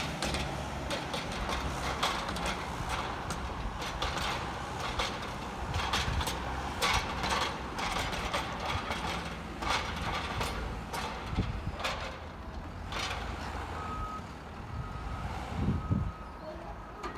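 JCB 413S loading shovel's diesel engine working under load as it pushes grass up a silage pit, with repeated sharp clanks and knocks from the machine. Over the last few seconds its reversing alarm beeps about once a second.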